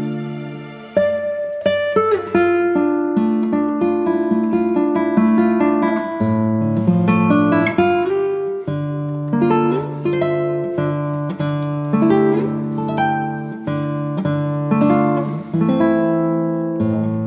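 Background music played on acoustic guitar: plucked notes and chords that ring and fade, at an unhurried pace.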